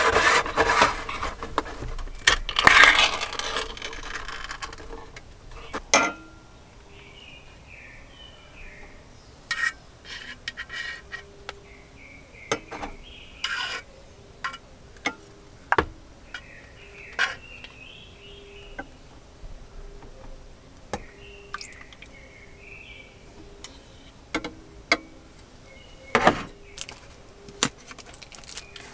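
Ring-pull lid being peeled off a can of peaches, a loud scraping tear in the first few seconds. Then scattered sharp clinks of a spoon and metal against stainless steel cups as the peach halves are served.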